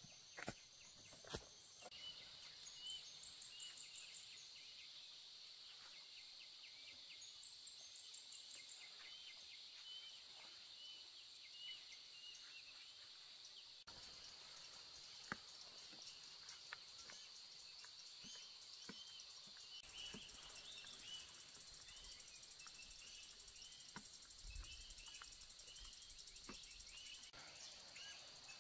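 Faint outdoor ambience: a steady high insect drone with many short bird chirps repeating over it, and a few light clicks or snaps here and there.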